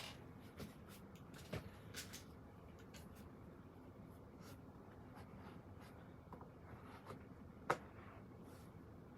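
Faint pen writing on paper: short scratching strokes with scattered light clicks and taps, and one sharper click near the end.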